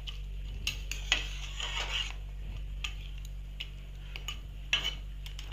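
A spatula stirring rice, potatoes and fish heads in a metal pan, with scattered scrapes and taps against the pan, the loudest about a second in and near the end, over a steady low hum.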